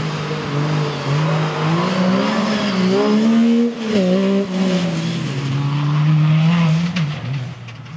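Rally car engines revving hard under acceleration, the pitch climbing and dropping at gear changes. A sharp break just under four seconds in gives way to another high-revving run that holds steady, then fades near the end.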